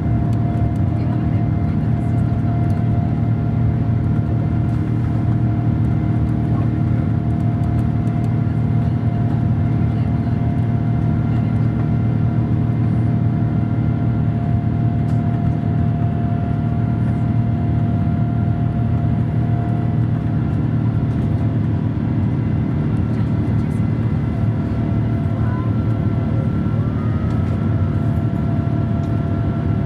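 Steady engine and airflow noise inside the cabin of a Boeing 787-9: a deep, even rumble with a few faint steady tones held above it.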